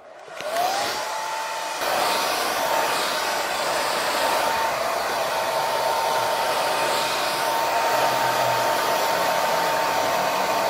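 Hand-held hair dryer switched on, its motor whine rising to a steady pitch within the first second. It then runs steadily with a rush of air, louder from about two seconds in, as it blows wet hair dry.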